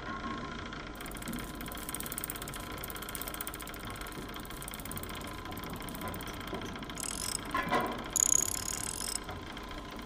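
Clockwork sound effect: gears whirring and ratcheting steadily, with a louder burst of clicking and clattering about seven to nine seconds in.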